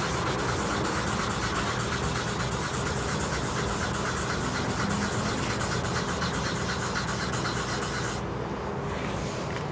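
Fine 2000-grit sandpaper on a sponge pad rubbed by hand in quick circles over a car's painted panel, a fast, even scratchy rasp that stops about eight seconds in. The paper is levelling the edges of a medium-depth scratch in the paint. A steady low hum runs beneath.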